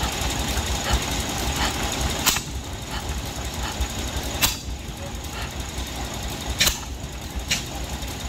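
Vintage stationary engine running slowly over a low steady throb, with a sharp crack about every two seconds and fainter clicks in between.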